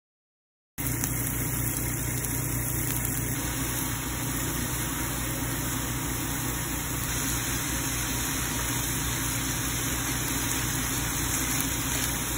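Ground chicken and vegetables frying in a pan, a steady sizzle over a low steady hum, starting suddenly about a second in.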